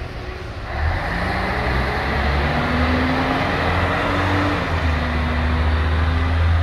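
Diesel engine of a 1996 Scania L113 bus pulling away and accelerating, heard over street traffic; it gets louder about a second in, its engine note climbing, breaking briefly a little past halfway, then running on.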